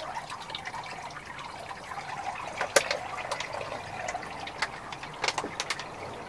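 Water sprinkling and trickling from a plastic bottle with holes poked in its top onto a miniature schnauzer standing in a plastic tub, as a pre-rinse before her bath, with a few sharp splashes along the way.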